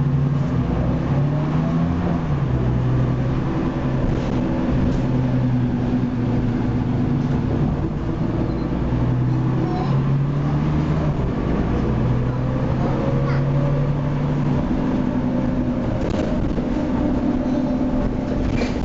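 Cummins L10 diesel engine and ZF Ecomat automatic gearbox of a Leyland Lynx Mk2 bus, heard from inside the saloon while the bus is under way. The engine note rises and drops several times as the bus changes speed.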